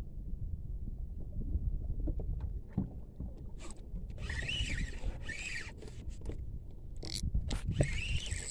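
Wind rumbling on the microphone over water around a small boat. From about halfway through, a fishing reel is cranked in short rasping whirs about a second apart.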